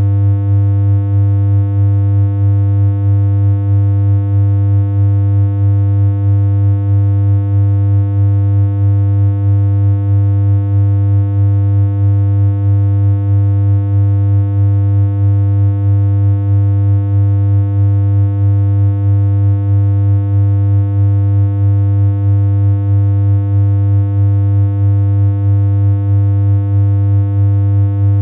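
A synthesized electronic hum: one low, buzzy note held without change, with a faint regular wobble in level about twice a second.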